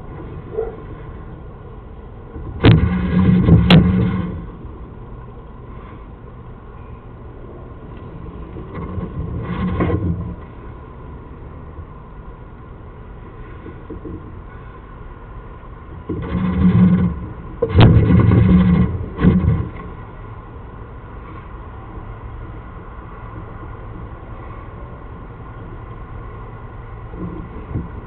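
Scraping and handling noise as a sewer inspection camera's push cable is fed along a sewer pipe, heard through the camera recorder's low-grade audio: a steady hum with a faint electrical whine, broken four times by rough scraping bursts with sharp clicks.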